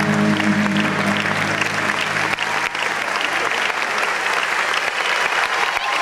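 Audience applauding, with the act's music fading out in the first second or two.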